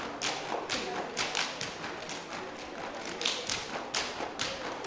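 Rampai Aceh dancers' body percussion: a row of seated dancers slapping and clapping in unison, a rhythmic run of sharp slaps about three a second.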